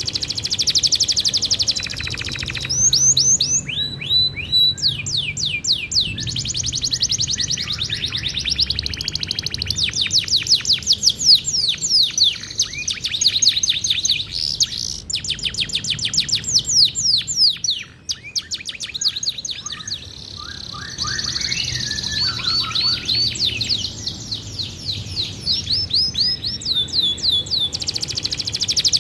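Domestic canary singing continuously, a long run of fast rolling trills of quick sweeping notes, one phrase changing into the next, with a short break about eighteen seconds in.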